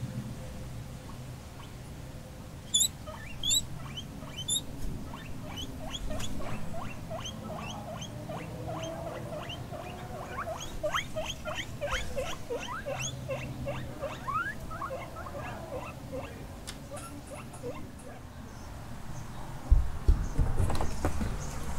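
Guinea pigs squeaking: long runs of short, high squeaks in quick succession, with a louder, rougher stretch near the end.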